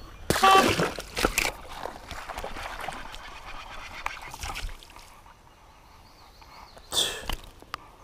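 Water splashing as a hooked fish thrashes at the surface while it is reeled in and lifted out, loudest in the first second and again about seven seconds in.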